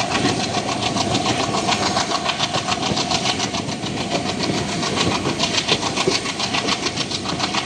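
Diesel locomotive engine running under power a coach or two ahead, with a fast, even chugging beat and a steady tone over it.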